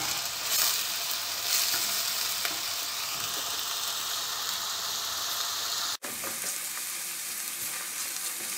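Chopped onions and peppers sizzling in olive oil in a stainless steel pot as a wooden spoon stirs them, being sautéed until soft. The sound cuts out for an instant about six seconds in.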